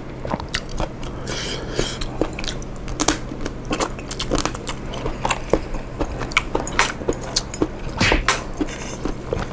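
Close-miked chewing of seafood and noodles: irregular wet mouth clicks and smacks with a couple of short slurps.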